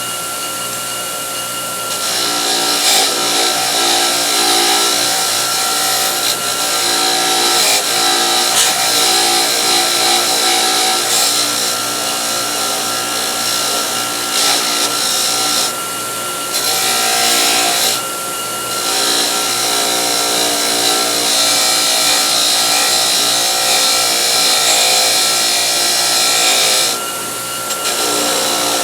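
Electric wire wheel running steadily, its motor humming while the spinning wire brush scrubs rust and old finish off steel ratchet parts with a harsh hiss. The scrubbing hiss drops out briefly a few times while the motor keeps running.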